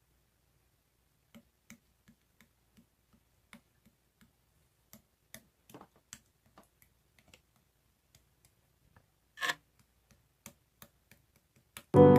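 Faint, irregular small clicks spread through the quiet, with one short louder rustle about nine and a half seconds in. Piano music starts at the very end.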